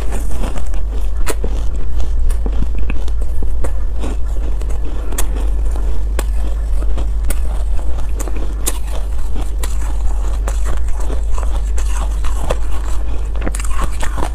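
A mouthful of matcha-dusted ice being chewed close to a clip-on microphone, with many small crisp crunches and crackles, over a steady low hum.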